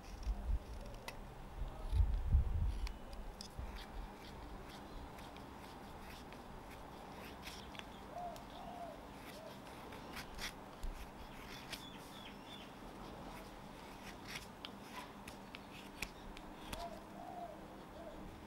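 A small carving knife slicing thin shavings from a green nectarine-wood fork: a run of short, crisp cutting clicks. A brief low rumble comes about two seconds in, and faint bird calls are heard twice.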